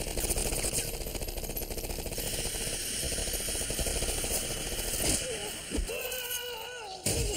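A dense, rapid rattling clatter, then a wavering cry rising and falling about five seconds in, and a sharp thud near the end.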